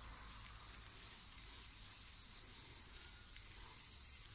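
Steady high-pitched chorus of insects in a garden, an even shrill hiss with no let-up.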